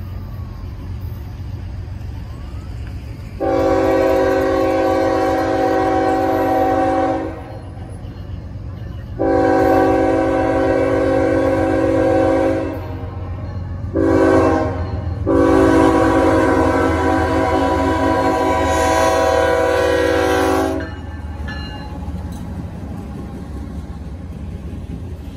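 Multi-tone air horn of a GE ES44AC diesel locomotive sounding the grade-crossing signal: long, long, short, long, the last blast the longest, over the steady low rumble of the approaching train.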